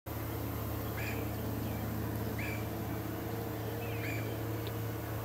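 Distant outboard motor running steadily at low speed while pushing a swamped pontoon boat, heard as a low drone across the water. A bird calls with short chirps three times over it.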